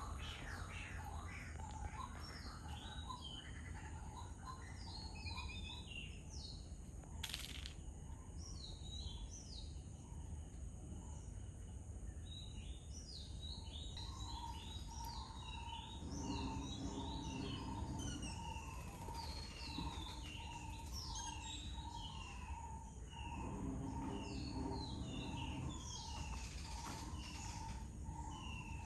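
Small birds chirping and twittering in many short, quick notes over a steady low background rumble. From about halfway a repeated single note joins in, sounding roughly twice a second, and there is one sharp click about seven seconds in.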